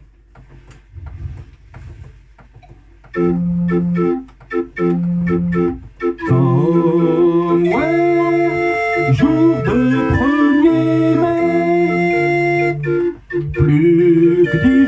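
Hand-cranked street organ (orgue de Barbarie) playing a card-book tune: a few faint clicks, then from about three seconds in a bouncing accompaniment of alternating bass notes and chords. From about six seconds a sung melody with scooping, sliding notes comes in over the organ.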